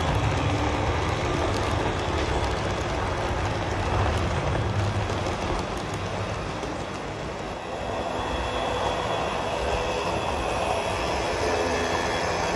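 Passenger train rolling past on rails: a steady rumble of wheels on track with some clatter and squeal, easing a little past halfway and then picking up again.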